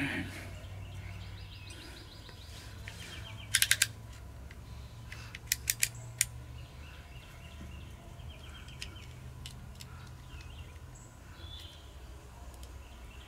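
Two quick runs of sharp clicks, about four each, roughly three and a half and five and a half seconds in, from a handheld lighter being worked, over faint birds chirping.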